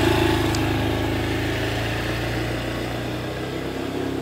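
Small motor scooter engine running as the scooter rides off with two aboard, a steady hum that slowly fades as it moves away.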